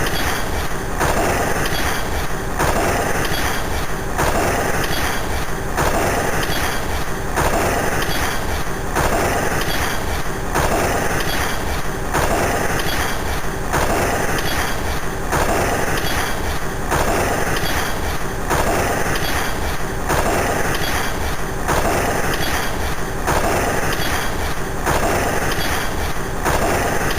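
Looping standby sound effect of the Kamen Rider Zero-One Hell Rise Progrise Key transformation. It is a harsh, dense electronic pattern that repeats about every 1.6 seconds, with no voice.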